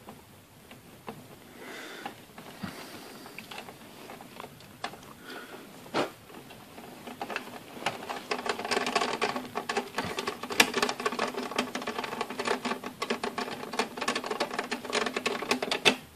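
A screw being driven in with a screwdriver to refit the heatsink ducting in a PC case. Scattered clicks of handling come first, then from about seven seconds in a long run of rapid clicking with a steady whir as the screw turns in.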